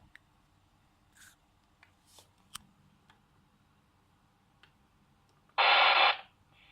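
A handheld VHF amateur radio's speaker: a few faint clicks, then near the end a short, loud burst of static hiss lasting about half a second, as the squelch opens.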